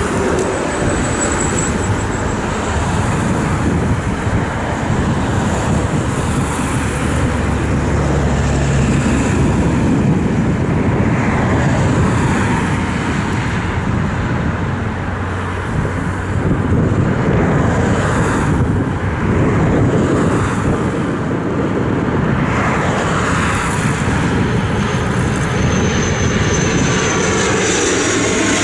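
Finnair ATR 72-500's twin turboprop engines and propellers on landing approach, a loud steady drone. Near the end the aircraft passes close and the pitch falls away.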